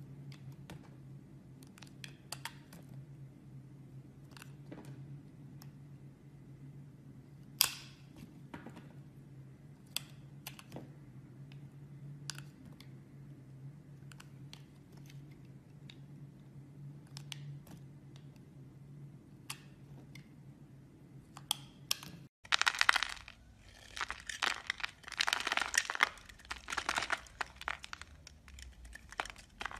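Utility knife blade cutting soap: first sparse faint clicks over a low steady hum as the blade works through clear glycerin soap, then, about three-quarters of the way through, the blade carving chunks off a hard, dry bar of white soap with dense, loud crackling and crunching.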